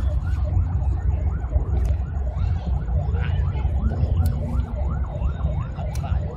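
Fireworks display: a deep, continuous rumble with a few sharp cracks, under a wavering tone that rises and falls about four times a second, like a siren.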